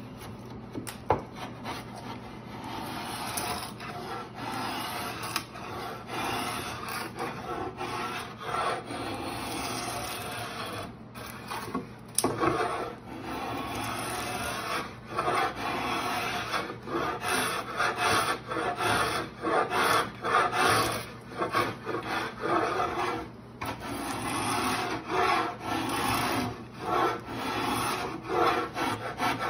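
Antique drawknife scraping and shaving along the edge of an ambrosia maple slab, debarking it and peeling off curling strips of bark and wood. The scraping is fairly continuous at first and breaks into distinct quick strokes, one or two a second, from about twelve seconds in.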